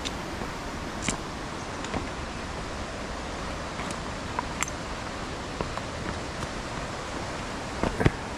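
Steady rushing of a river below, with scattered sharp clicks of trekking-pole tips and footsteps on loose rocks; a double knock near the end is the loudest.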